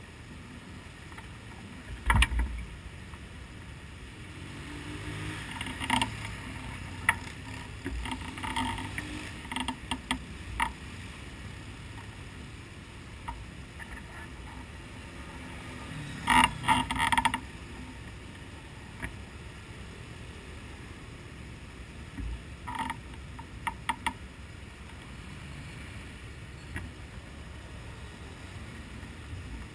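Scattered clicks, rattles and creaks of harness hardware and gear inside the cockpit of a parked midget race car as the belted-in driver moves about, with the engine not running. The densest cluster of clicks comes about sixteen seconds in.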